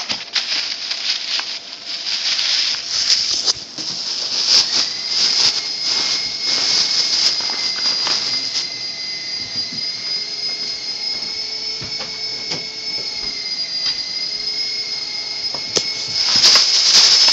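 Rustling and clicking of packaging and hockey gear being handled, over a steady high hiss. From about four seconds in, a steady high-pitched whine joins and holds to the end.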